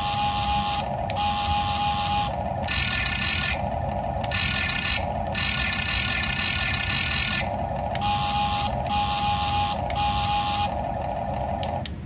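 Electronic sound effects from the DieCast Masters CAT 297D2 RC skid steer's sound module, played through its small speaker: a buzzing that switches every second or so between a lower and a higher pitch over a steady low rumble, with a steady beep tone in several stretches.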